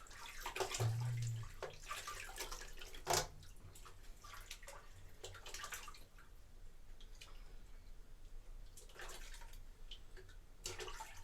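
Bathwater splashing and sloshing in small irregular splashes and drips, the loudest about three seconds in and another group near the end.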